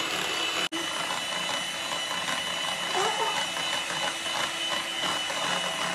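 Handheld electric mixer running steadily with a constant whine, its whisk beaters whipping instant coffee, sugar and hot water into a cream. The sound drops out for an instant just under a second in.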